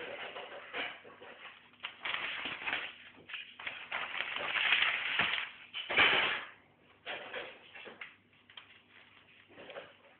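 Irregular scuffling and rustling of a giant continental rabbit moving about on a hard floor and nosing at a fabric mat, with one louder bump about six seconds in.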